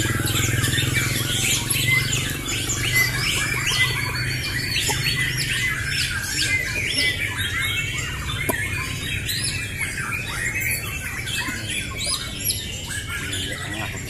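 Several caged white-rumped shamas (murai batu) singing at once in competition, a dense, unbroken tangle of rapid chirps, whistled sweeps and harsh notes, over a steady low hum.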